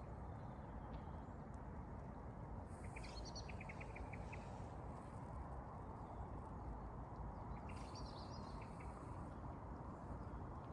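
Wild birds singing in a forest, in two short bouts: about three seconds in, with a quick run of short repeated notes, and again near eight seconds. Under them runs a steady low background noise.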